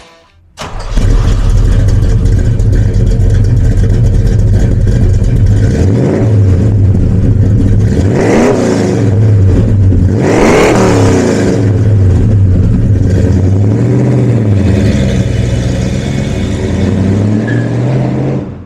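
1969 Pontiac GTO's 400 V8, rebuilt with an Edelbrock cam, heads and intake and a new exhaust, coming in suddenly about half a second in and idling loud. It is revved three times, briefly, about six, eight and a half and ten and a half seconds in, the last two the strongest.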